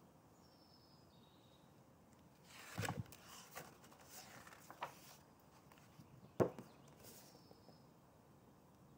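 Faint rustling of a hardcover picture book being handled and opened, with one sharp tap about six seconds in.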